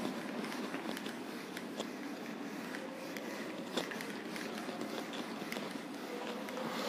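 Whiteboard eraser wiping across the board: a faint, soft scrubbing with small scattered ticks and one slightly louder click about four seconds in.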